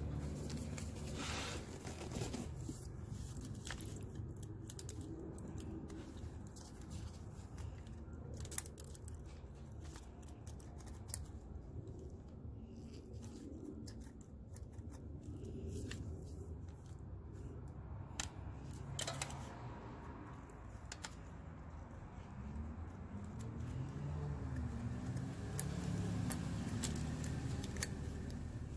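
Small metal hand tools clicking and scraping as a screwdriver turns a rocker arm's valve-adjusting screw and a 10 mm wrench works its lock nut on a Honda 3.2L V6, setting valve clearance. There are occasional sharp clicks over a steady low hum.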